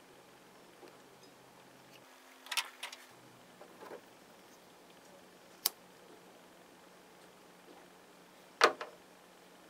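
Light handling noises from a small tin putt-putt steamboat toy and its fittings over a glass bowl of water: a short cluster of knocks and clatter about two and a half seconds in, a sharp single click near the middle, and the loudest tap near the end.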